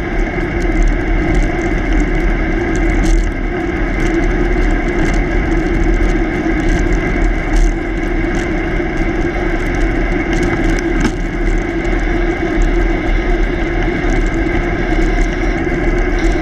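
Steady wind buffeting on a bicycle-mounted camera's microphone while riding, over the hum of the tyre rolling on asphalt.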